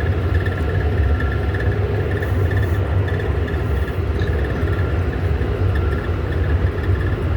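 John Deere tractor's diesel engine running steadily, a low even rumble with a faint higher pulsing whine above it.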